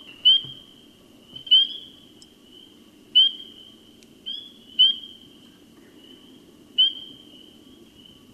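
Northern spring peepers calling: short, high-pitched rising peeps every second or two, over a fainter steady peeping in the background.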